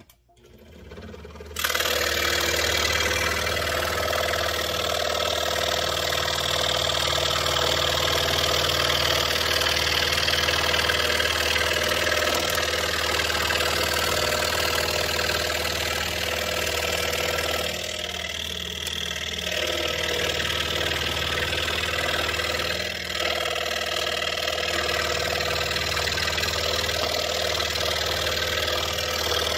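Pegas scroll saw with a No. 3 blade starting up about a second and a half in, then running steadily as it cuts an egg shape through a taped stack of Baltic birch plywood.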